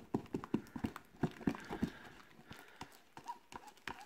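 Sticky slime glue being stirred with a stick in a plastic tub: irregular wet clicks and squelches, several a second, thinning out in the second half. The glue has just had activator added and is starting to turn into slime but is still very sticky.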